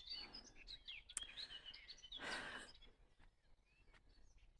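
Faint dawn chorus: several small birds chirping and twittering in quick, overlapping phrases, with a short breathy rush a little over two seconds in.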